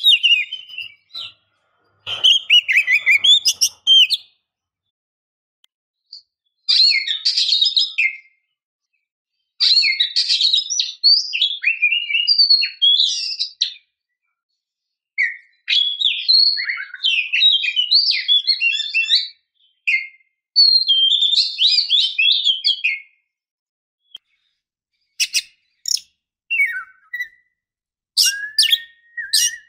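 Oriental magpie-robin (kacer) song: loud phrases of rapid, varied whistles and chirps lasting one to four seconds, separated by short pauses, with a few sharp clicking notes and a rising whistle near the end. Given as a female's call, played to lure a male into singing.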